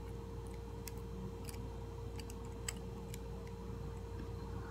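Faint, scattered clicks and ticks of wire and needle-nose pliers being handled as the wire is bent and twisted into a fishing spreader, over a steady background hum.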